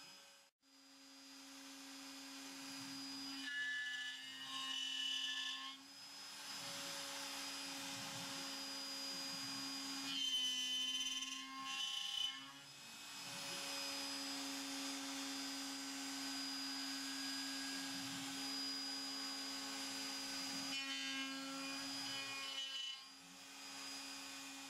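CNC router spindle running with a steady hum while its cutter mills wood in 3-axis machining. Brief higher whines come and go three times.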